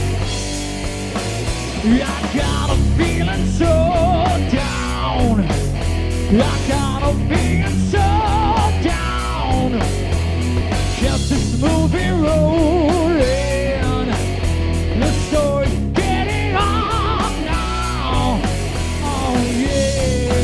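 Live rock band playing loud on electric guitars, bass and drum kit, with a lead melody line that bends and wavers in pitch over a steady low end.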